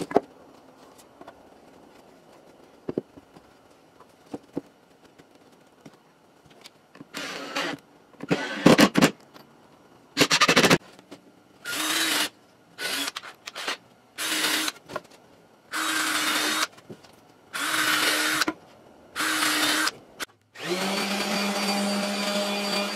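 A few faint knocks of wood pieces set down on a bench, then a cordless drill boring into a wooden board in repeated short bursts of about a second each. Near the end a random orbital sander starts and runs steadily against the wood.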